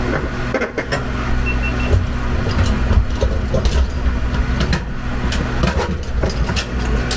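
A steady, loud machine hum from a running motor, with scattered knocks and clicks of handling and tools.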